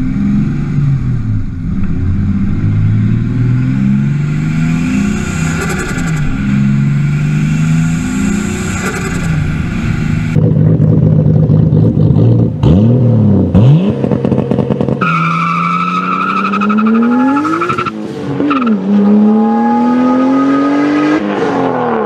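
Toyota 7M-GTE turbocharged straight-six revved repeatedly. It then accelerates hard through the gears in a Mk3 Supra, the engine note rising steadily and dropping sharply at two gear changes near the end.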